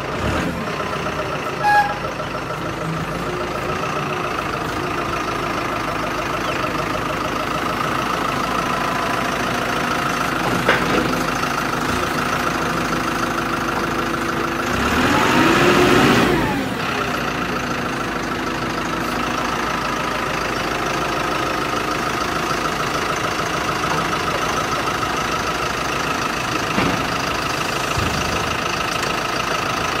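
A vehicle's engine idling steadily. About halfway through it swells briefly, its pitch shifting, and a couple of short knocks sound early on and around ten seconds in.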